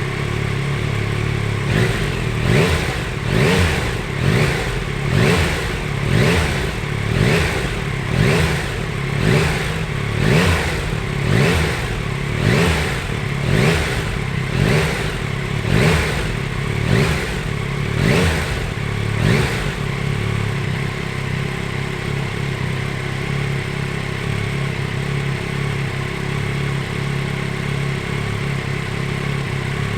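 Yamaha Tracer 9 GT's 890 cc inline three-cylinder engine idling, then blipped over and over, about two short revs a second, for some seventeen seconds before settling back to a steady idle.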